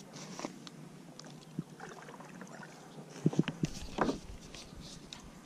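Knocks and clicks of a baitcasting rod and reel being handled in a kayak: a quick cluster of sharp knocks a little over three seconds in and another about four seconds in, over a faint background.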